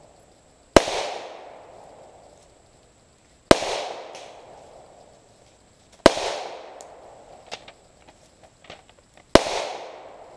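Four single shots from a Ruger P89DC 9 mm pistol, slow and deliberate, about two and a half to three and a half seconds apart, each followed by an echo dying away over about a second.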